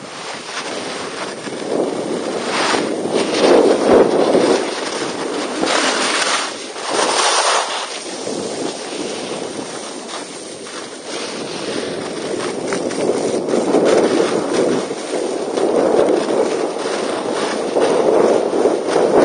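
Wind rushing over an action camera's microphone together with a snowboard's edge scraping and hissing over packed snow during a downhill run. The noise swells and eases in waves as the rider turns and gathers speed.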